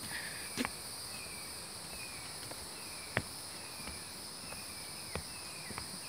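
Woodland insect chorus: a steady high-pitched drone of insects, with a faint short falling chirp repeating about every 0.7 s. Three sharp clicks break through it, the loudest about three seconds in.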